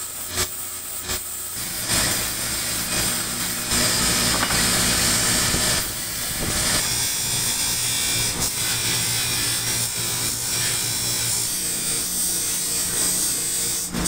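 Workshop machinery running steadily: a continuous motor hum with a hiss over it.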